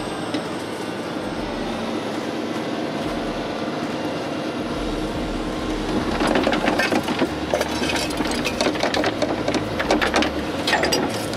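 A truck engine running steadily. From about six seconds in, rapid metallic clanking and rattling plays over it.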